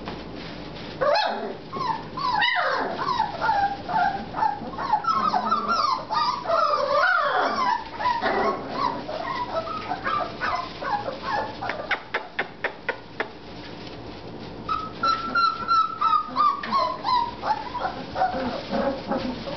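A litter of four-and-a-half-week-old American Bulldog puppies whimpering and yipping in many short, overlapping high cries, with one longer falling whine near the end. A quick run of clicks comes about halfway through.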